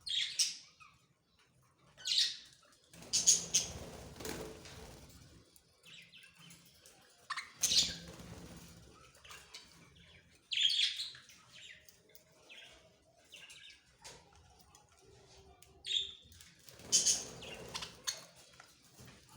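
Budgerigars chirping in short bursts every few seconds, with some fuller noisy bursts mixed in.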